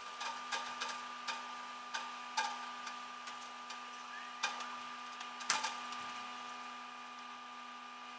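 Irregular light clicks and knocks of metal on a flatbed tow truck's deck, about a dozen, the loudest about five and a half seconds in, over a steady hum.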